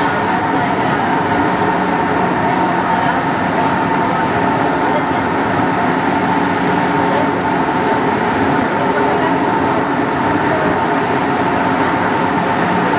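Santiago Metro NS16 train running steadily through a tunnel, heard from the driver's cab: even rumble and rail noise with a constant high tone over it.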